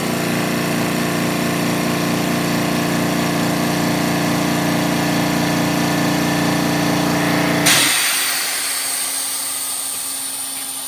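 Air Techniques M5B dental air compressor's motor and pump running steadily as it pumps the tank from 60 up to 80 psi. About eight seconds in the motor cuts off suddenly at the pressure switch, and a fading hiss follows as air vents back through the air dryer to regenerate its media, while the cooling fan keeps running.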